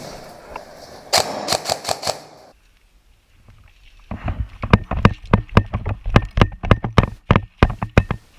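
Airsoft rifle firing quick, uneven semi-automatic shots, about five sharp clicks a second for roughly four seconds, after a brief burst of rustling movement about a second in.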